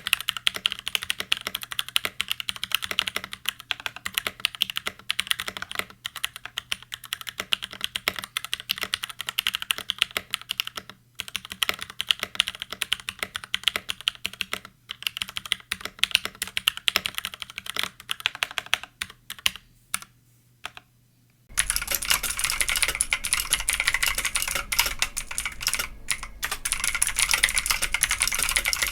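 Fast continuous typing on a Keychron C1 mechanical keyboard, a dense stream of key clacks over a steady low hum. About three quarters of the way through it cuts to louder typing on a BlackShark Sixgill BS-K2 mechanical keyboard, with more hiss behind it.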